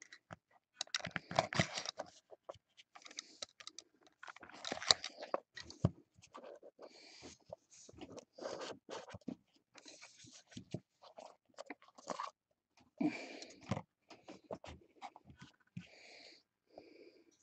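Small cardboard trading-card boxes and cards being handled on a tabletop: irregular rustling, scraping and light tapping as a box is opened and the cards are slid out.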